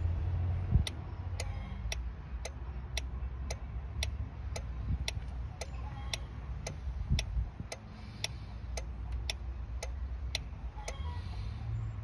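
Automotive 4-pin relay clicking on and off in a relay tester, about two clicks a second for roughly ten seconds, as the tester cycles it through its function test. A low rumble sits underneath.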